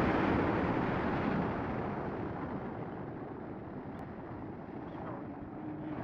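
Wind rushing across the microphone, a rough rumbling noise that is loudest at first and eases off gradually.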